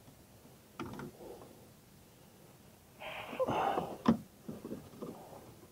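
Faint handling sounds of hands and a handheld work light moving inside an opened car dashboard. There is a sharp click about a second in, a brief rustling scrape around three seconds in, another click just after it, and a few small knocks near the end.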